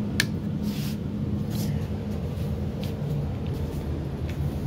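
A steady low rumble of background noise, with a few faint short clicks and ticks over it.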